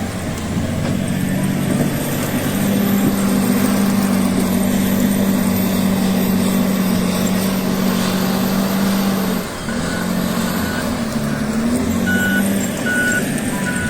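Heavy diesel snow-clearing machine's engine running steadily, dipping briefly about two thirds through, with a few short reversing beeps near the end.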